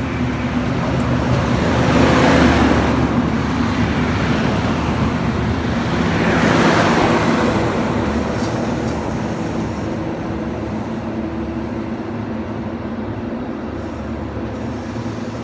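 Endeavour diesel railcar set running in past close by: the drone of its diesel engines with wheel and rail noise, swelling twice as it passes below, then easing off as it slows into the platform.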